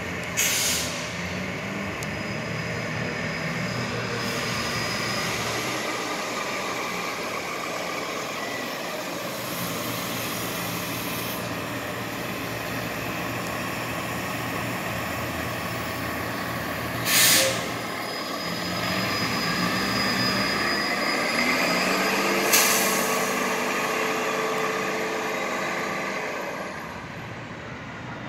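Articulated hybrid-electric transit bus running as it pulls away, with three sharp air-brake hisses: one near the start and two in the second half. A whine rises in the second half, and the bus fades near the end.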